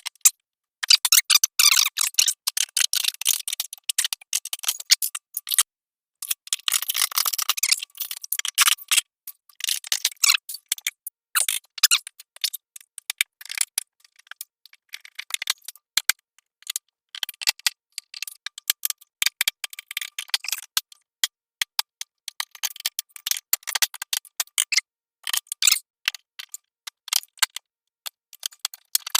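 Hand tools working on the metal interior of an old refrigerator: rapid light clicking and scraping, dense in two bursts early on and then scattered ticks.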